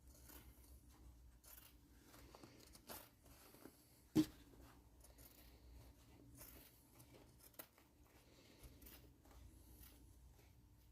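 Faint sounds of a paper towel being cut down to a smaller piece, with scattered small clicks and one sharp knock about four seconds in.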